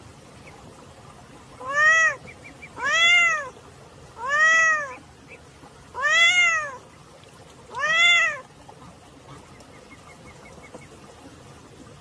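A cat meowing five times, about a second and a half apart, each meow rising and then falling in pitch.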